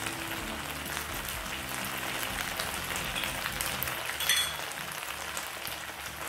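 Onions and capsicum with sauce sizzling steadily in a frying pan over a low gas flame, with one brief sharp click about four seconds in.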